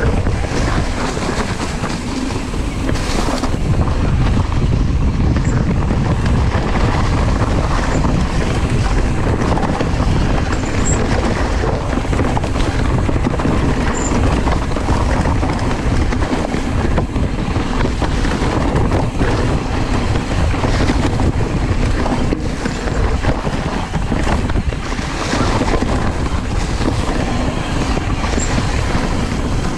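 Wind buffeting the microphone over the steady rolling and rattling of a hardtail mountain bike riding fast down a dirt trail covered in dry leaves.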